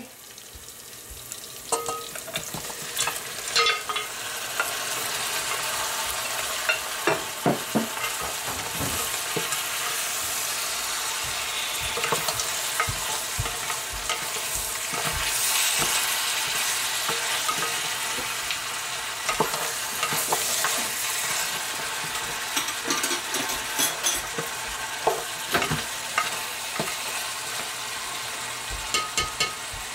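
Pre-boiled goat meat sizzling in hot oil in a stainless steel pot, sautéed with onion, ginger and garlic, while a spatula stirs it with frequent scrapes and knocks against the pot. The sizzle builds over the first few seconds as the meat goes in, then holds steady.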